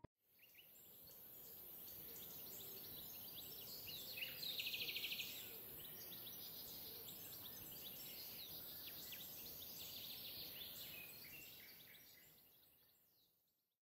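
Faint outdoor birdsong: many short chirps from several birds, with a rapid trill about five seconds in, over a steady high-pitched hiss. It fades in at the start and fades out near the end.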